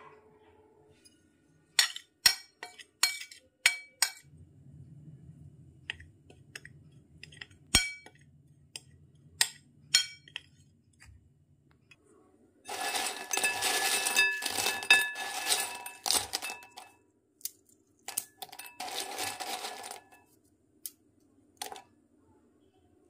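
A run of sharp clinks, then two spells of clattering, about four seconds and then a second and a half long: crisp fried rice kurkure sticks dropping and rattling onto a ceramic plate.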